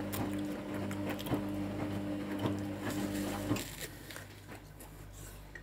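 Hotpoint WMA30 washing machine tumbling its drum during the rinse: a steady motor hum with clicks and wet laundry sloshing. The motor stops about three and a half seconds in, leaving faint sounds of water and settling laundry.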